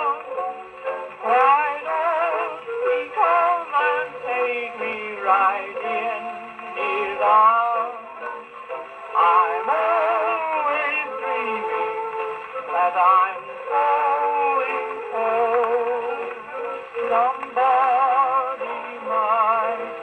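A 78 rpm shellac record playing on an HMV 100 portable wind-up gramophone through its acoustic soundbox and tone arm: a melody with a wavering vibrato over accompaniment, with almost no treble above the middle range.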